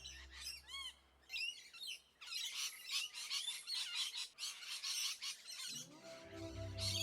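Parrots calling: a quick series of high arching chirps, then many rapid overlapping chirps and squawks from about two seconds in. Background music fades out early and comes back near the end.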